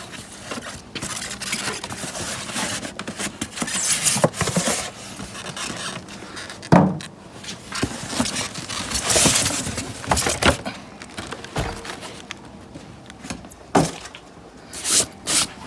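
Cardboard box being opened and unpacked by hand: irregular rustling and scraping, with a few sharp knocks.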